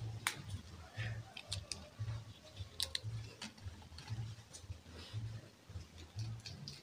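Faint crisp snaps and rustles of izote (yucca) flowers being plucked off their stalk by hand into a plastic tub. Under them, a low soft thud repeats steadily about twice a second.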